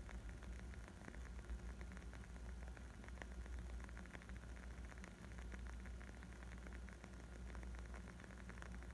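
Wood fire crackling: irregular small pops and snaps over a soft steady hiss and low rumble of the burning logs.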